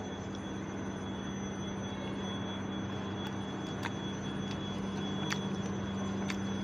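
A steady machine hum with an even rushing noise, and a few faint sharp clicks scattered through it.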